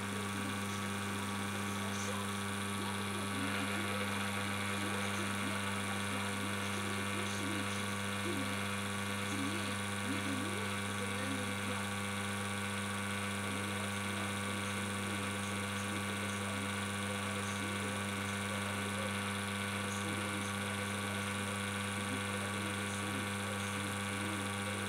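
Reverse osmosis booster pump running with a steady hum during the system's flush cycle. A faint hiss joins about three seconds in.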